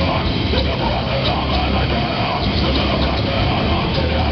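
Heavy metal band playing live: electric guitars, bass and drums through amplifiers, with the singer shouting into the microphone.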